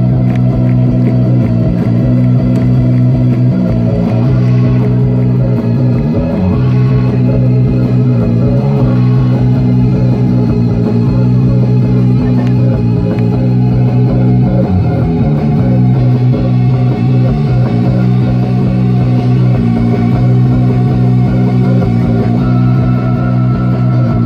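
Live rock band playing loud through a festival PA, heard from within the crowd: a steady, droning bass line with electric guitar.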